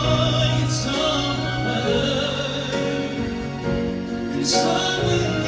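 Live male vocal ballad with long held sung notes, accompanied by grand piano and a string quartet.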